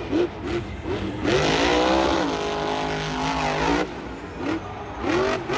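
Car engine revving in short sweeps that rise and fall in pitch, with one longer rev that climbs and holds for a couple of seconds starting about a second in.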